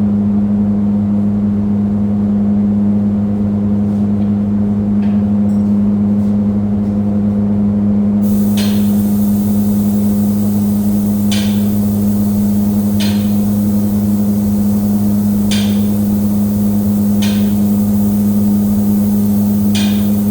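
Spray finishing equipment applying a top coat: a steady electric motor hum, joined about eight seconds in by a continuous hiss of spraying air with short sharper bursts every two seconds or so.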